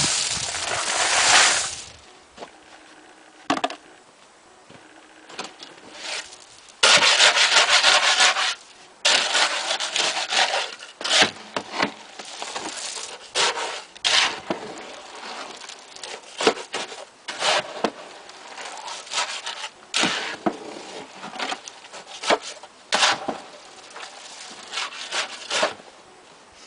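Concrete being mixed by hand. A load of gravel is tipped into the cement and sand mix with a long gritty rush, then the stiff mix is worked in repeated scraping strokes, about one a second.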